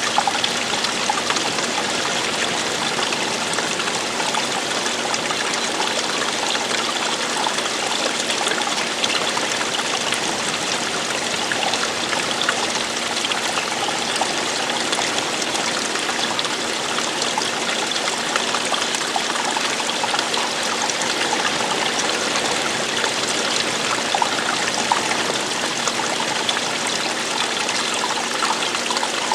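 Running water, flowing and splashing steadily: an even rushing with small trickling splashes throughout.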